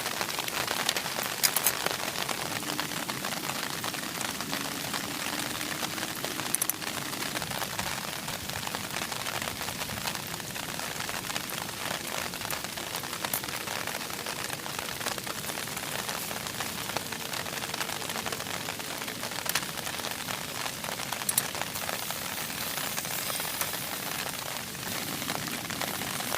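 Steady rain falling, a dense even patter with scattered louder drop hits.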